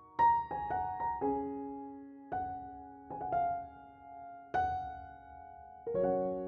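Gentle piano music: single notes and chords struck every second or so and left to ring out.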